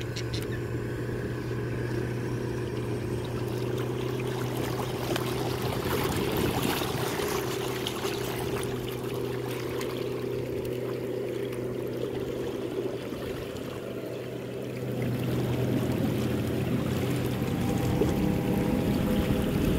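Water splashing and trickling around a kayak on the move, over the steady drone of a boat engine that grows louder about fifteen seconds in.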